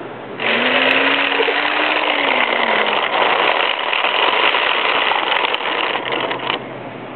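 Plastic toy truck's wheels rolling along a rough concrete ledge: a steady gritty rattle that starts about half a second in and stops suddenly near the end. A low hummed engine-like voice runs over its first few seconds.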